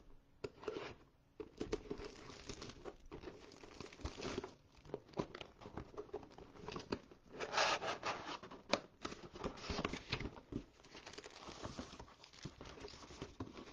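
Plastic shrink wrap being cut, torn and crinkled off a cardboard trading-card hobby box, followed by the cardboard lid being opened and foil card packs handled, in irregular rustles, crackles and small clicks.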